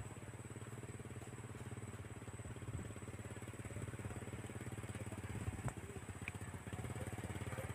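A small engine running steadily, with a fast even pulse.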